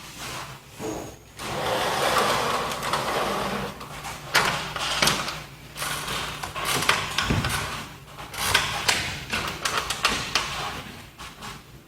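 Hands-on handling noise: irregular knocks, clicks and rustling, with the sharpest knocks a little over four seconds in and again around eight and a half seconds.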